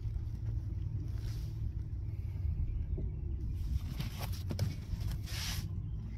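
Steady low wind rumble on the microphone, with water lapping against the canoe's hull and a few faint light knocks; a short splash-like hiss about five seconds in.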